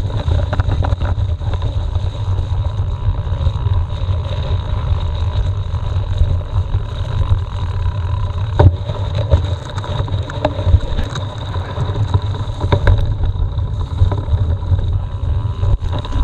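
Mountain bike riding over a muddy trail filmed on a bike-mounted action camera: steady wind and tyre rumble on the camera's microphone, with sharp knocks and rattles from the bike over bumps, the loudest about halfway through.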